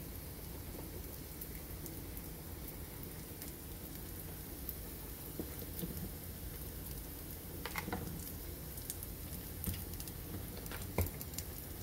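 Diced onions and garlic sizzling in oil in a frying pan: a steady hiss, with a few sharper pops and crackles in the second half.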